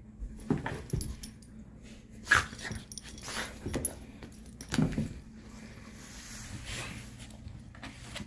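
Boston terrier making several short, separate vocal sounds about a second apart, the excited noises of a dog kept from a toy held out of reach.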